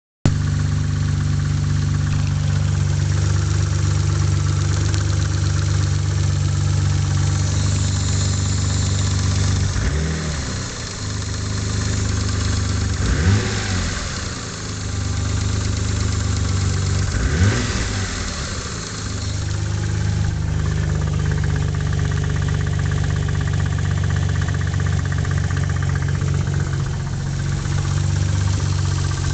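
Mitsubishi 3000GT's 3.0-litre V6 idling steadily, blipped up in revs briefly a few times around the middle. The owner suspects the engine has a spun bearing.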